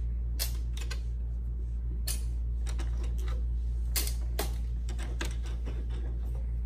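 Small plastic toy pieces clicking against a table and a plastic bowl as they are picked up and dropped in to put them away: a dozen or so light, irregular clicks over a steady low hum.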